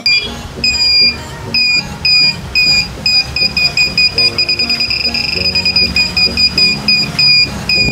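An electronic buzzer on ultrasonic obstacle-sensing glasses beeping in a high tone. The beeps come about two a second, speed up into an almost continuous run near the middle as an obstacle gets closer, then space out again as it moves away.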